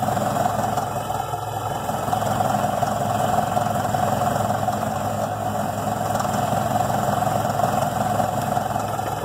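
Caterpillar D7E crawler dozer's diesel engine running steadily under load as it pulls a cable to roll a tipped-over D7G dozer back upright.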